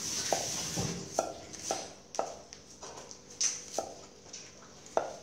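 A broad-bladed knife chopping shallots on a round wooden chopping board: sharp knocks of the blade on the wood, about two a second, unevenly spaced.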